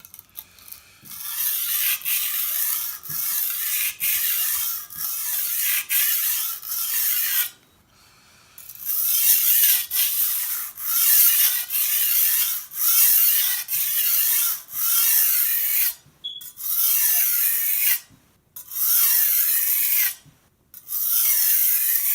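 Steel chalef blade stroked back and forth on a coarse sharpening stone under heavy pressure. It makes a steady, rhythmic rasping scrape at a little more than one stroke a second as metal is ground away to form a new edge. The strokes stop for about a second near the middle and break off briefly a few times toward the end.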